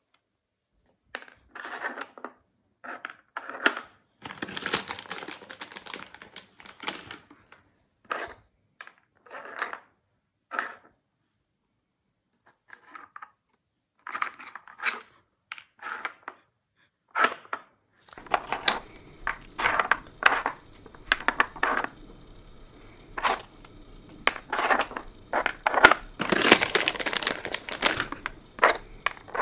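Plastic pieces of a Nina Ottosson Dog Hide N' Slide puzzle being slid and lifted by hand while treats are hidden in it: irregular short clacks and knocks, with a stretch of rustling about four to seven seconds in and busier clattering in the second half.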